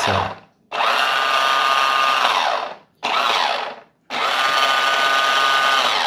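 Small electric drive motor and gearbox of a 1:12 toy RC car spinning its rear wheels in the air. It gives two whining bursts of about two seconds each with a shorter blip between, and each burst falls in pitch as the wheels coast down.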